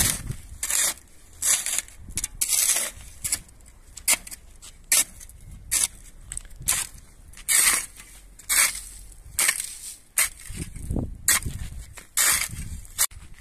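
Small wooden-handled spade digging into dry, stony soil: short scraping crunches of the blade through grit and pebbles, about one stroke a second.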